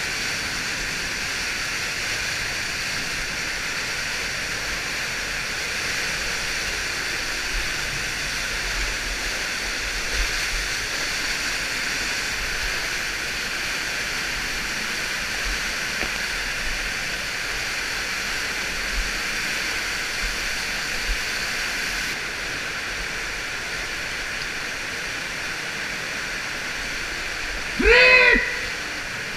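Water falling and spraying down a narrow cave shaft, a steady rushing hiss close to the camera. Near the end a person gives one short, loud shout over it.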